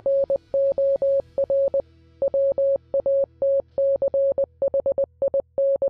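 Morse code: a single steady beep keyed on and off in a run of short and long elements, over a soft, low music bed.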